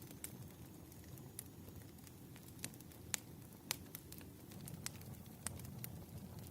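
Campfire crackling softly over a low steady rumble of burning wood, with about eight sharp pops and snaps at irregular moments.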